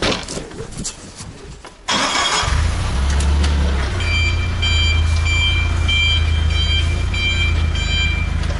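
A few short knocks and clicks, then a JAC forklift's engine running steadily with a low hum; from about four seconds in its warning alarm beeps about twice a second, some eight times.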